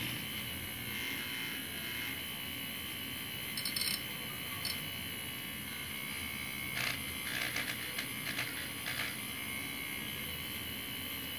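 Handheld battery milk frother whisking warm milk in a glass mug, its small motor running with a steady buzz. A few brief rattles come about four seconds in and again between seven and nine seconds.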